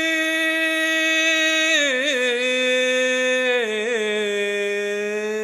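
A man's voice singing unaccompanied, holding one long note with a slight vibrato on a Hebrew liturgical melody. The note steps down in pitch twice, about two seconds in and again near four seconds, each time with a small ornamental turn.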